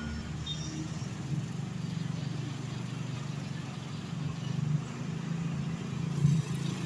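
Street traffic: passing motorcycles and other motor vehicles with engines running, a steady low hum that swells a little near the end.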